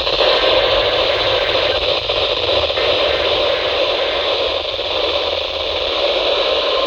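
Steady radio static hissing from a weather-radio receiver, an open channel with no station coming through.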